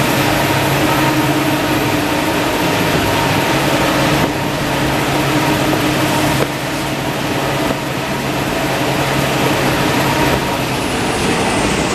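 Maxi roll rewinder and log saw of a toilet tissue production line running: loud, steady machine noise with a constant hum. The noise steps down slightly about four and six and a half seconds in.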